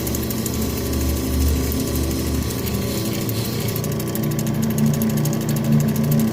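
Lapidary cabbing machine running, an opal held against its spinning diamond grinding wheel. The motor hum is steady, while the low grinding sound shifts about midway as the stone is moved on the wheel.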